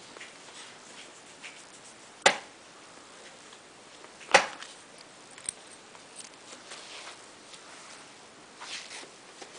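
Soft rustling and shuffling of a pit bull moving about close to the microphone on a person's lap, with two sharp knocks about two seconds apart and a smaller click a second later.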